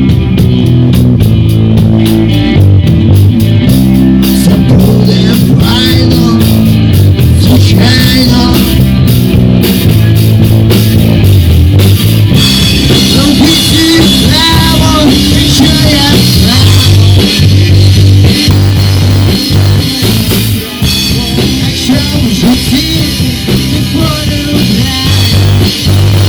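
Rock band playing a song: drum kit, a pulsing bass line and guitar, loud throughout.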